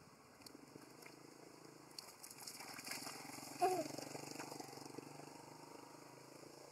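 Water splashing as macaques wrestle in a shallow pond, with a single short cry from a macaque about halfway through, the loudest sound.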